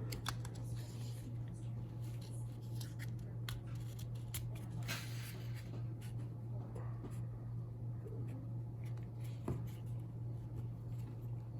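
Small clicks and scraping of plastic parts as a SRAM Centera Grip Shift twist shifter is worked back together by hand, over a steady low hum.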